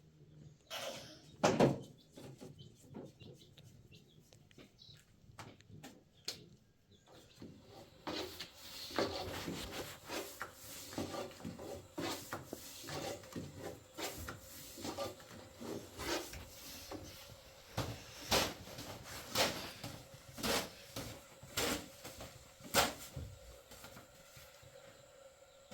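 Irregular knocking and clatter of objects being handled. It grows busier partway through, and near the end there is a run of sharper knocks about once a second.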